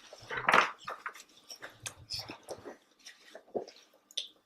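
People chewing chicken nuggets: scattered soft, wet mouth sounds, the loudest about half a second in.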